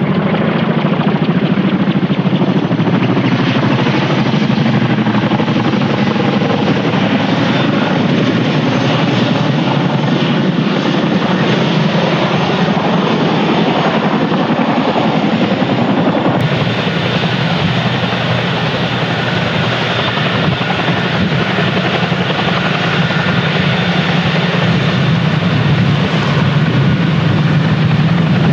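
Boeing CH-47F Chinook tandem-rotor helicopter flying past at low height, its twin turboshaft engines and two rotors giving a loud, steady noise.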